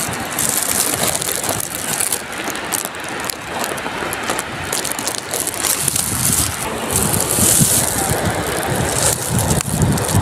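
Wading through shallow seawater over coral rubble and seagrass: water sloshing and rubble crunching underfoot as a steady rough noise, with wind buffeting the microphone as a low rumble near the end.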